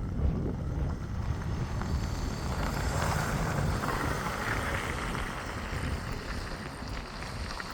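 Wind buffeting the microphone, a steady low rumble with uneven gusts.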